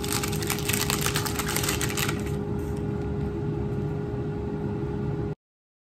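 Puff pastry's paper wrapping crinkling and crackling as the sheet is unrolled, for about two seconds, over the steady hum of the air fryer preheating. The sound cuts off suddenly near the end.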